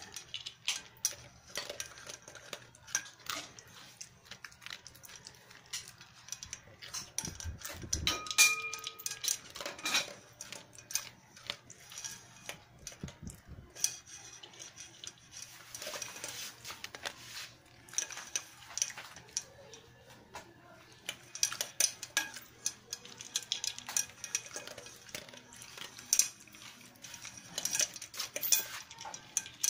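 A dog crunching dry kibble from an aluminium pot, with quick irregular clicks and clinks as pellets and its muzzle knock the metal. About eight seconds in, a louder clank sets the pot ringing briefly.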